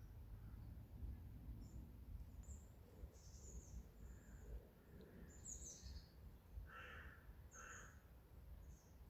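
Faint forest birds calling: scattered high chirps, then two harsher calls about a second apart near the end, over a low steady rumble.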